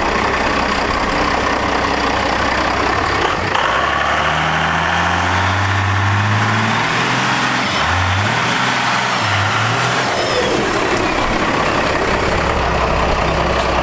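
First-generation Dodge Ram's 5.9 L 12-valve Cummins diesel with a compound turbo kit, accelerating hard: the engine note climbs from about four seconds in. After about ten seconds it eases off, and a high whine falls away in pitch.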